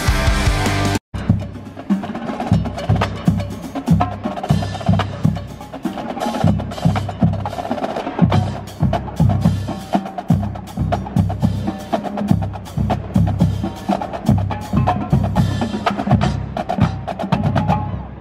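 For the first second there is background music, which cuts off abruptly. Then a marching drumline plays: snare drums in fast, tight rhythmic patterns over bass drums, with cymbals.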